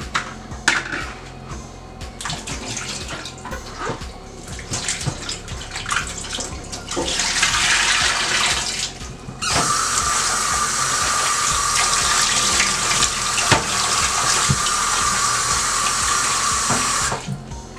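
A kitchen tap running in two stretches, a short one about seven seconds in and a longer one of about seven seconds that cuts off near the end, after a few seconds of light knocks and clatter of handling.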